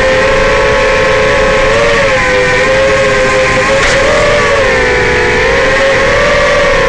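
Racing quadcopter's four brushless motors (Racerstar BR2205 2600KV) spinning 5-inch propellers, a steady whine whose pitch wavers up and down as the throttle is worked in low flight. A short click about four seconds in.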